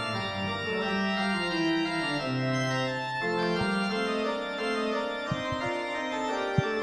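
Organ music: sustained chords that change in steps, with a few light knocks near the end.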